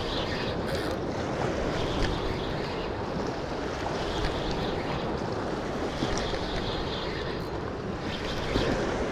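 Steady wash of surf on sea rocks with wind buffeting the microphone. A spinning reel is cranked in short spells, a faint whir that comes and goes above the surf.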